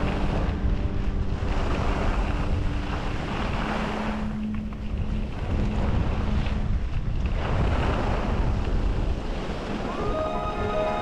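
Wind rushing over the microphone of a camera carried by a skier descending a groomed slope, surging and easing with the turns, with skis hissing over packed snow. Music comes back in near the end.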